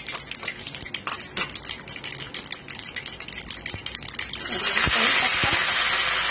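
Mustard seeds and dried red chillies crackling in hot oil in an aluminium pan as a metal ladle stirs them. About four seconds in, curry leaves are dropped into the oil and it breaks into a loud, steady sizzle.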